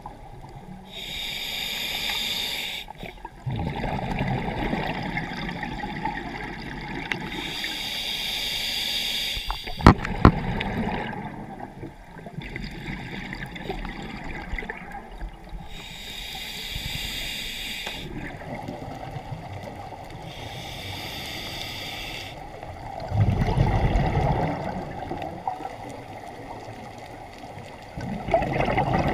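Scuba diver breathing through a regulator underwater: exhaled bubbles rush out in hissing bursts every five or six seconds, with low gurgling between them and a single sharp knock about ten seconds in.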